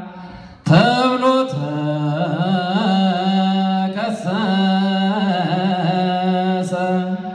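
A man's solo voice chanting Ethiopian Orthodox Yaredic zema into a microphone: long held low notes with wavering ornamental turns. A new phrase starts about a second in after a short breath, and another about four seconds in.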